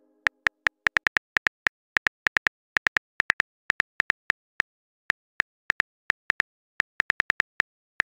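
Phone keyboard typing sound effect: a long run of short, sharp key clicks at an uneven pace, about four or five a second, with brief gaps.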